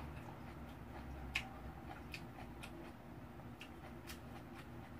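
Faint eating sounds over a low steady hum: scattered soft clicks and taps, the sharpest about one and a half seconds in.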